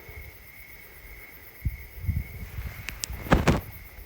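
Crickets trilling steadily, with a few low thumps from about a second and a half in and a loud rustling scrape a little after three seconds.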